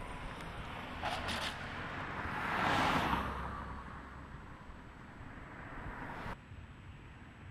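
A car driving past, its noise swelling to its loudest about three seconds in and then fading away.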